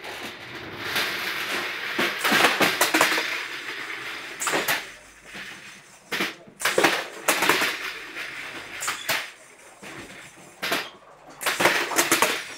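Plastic crates rolling and clattering along an overhead aluminium roller conveyor: a rattling rush lasting a couple of seconds, then a run of sharp knocks and clatters as they bump along the rollers and frame.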